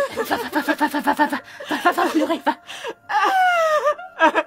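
Women laughing in quick, pulsing bursts. About three seconds in, one voice lets out a long cry that falls in pitch.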